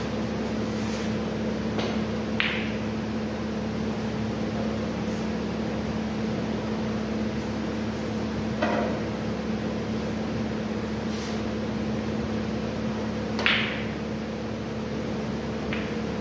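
Snooker balls clicking sharply as they are struck, three times, the loudest near the end, over a steady electrical hum in the hall.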